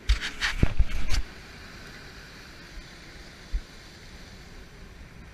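Ocean surf breaking against a rocky shoreline: a loud crash and rush of water mixed with a few thumps in the first second or so, then a steady wash of surf.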